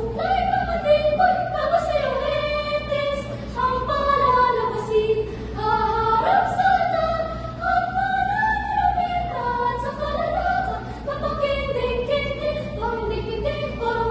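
A small ensemble of four girls singing in harmony, holding and gliding between sustained notes in two voice parts.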